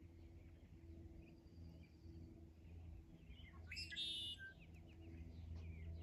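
Wild songbirds calling faintly, with short scattered chirps and one louder song phrase about four seconds in.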